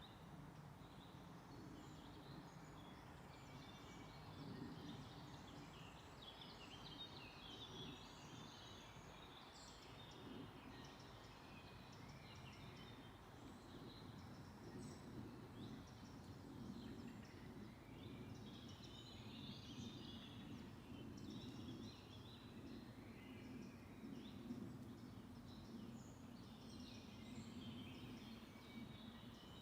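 Faint forest birdsong: several small birds chirping and twittering at once, busier in bouts, over a steady low background rumble.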